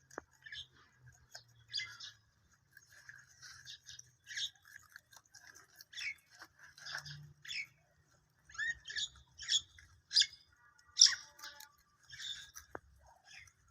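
Small birds chirping in short, irregular bursts, some rising or falling in pitch, with rabbits chewing grass underneath.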